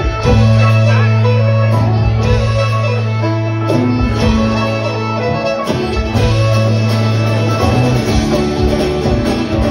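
Live country-rock band playing an instrumental passage: fiddle over strummed guitars, with long held low notes and drums underneath.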